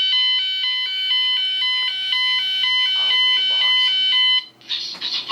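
Fire alarm sounder on a Gent Vigilon system, set off by test spray on a smoke detector, rapidly alternating between a high and a low tone. It cuts off suddenly about four seconds in.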